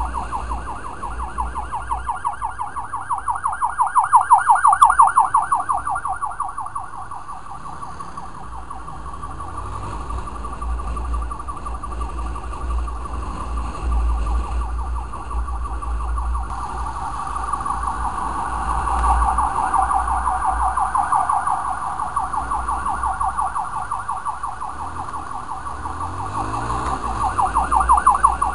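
Emergency vehicle siren sounding a rapid warbling yelp. It grows fainter through the middle, turns to a smoother tone a little past halfway, then goes back to the fast warble near the end, over a steady low road rumble.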